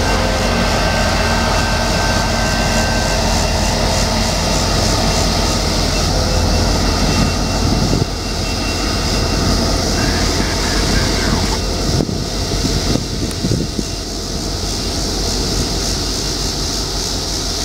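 EMD SD70MAC diesel-electric locomotive, running as a distributed power unit mid-train, passing close by with its 16-cylinder diesel engine running, over the steady rumble of train wheels on the rails. The sound drops abruptly about eight seconds in.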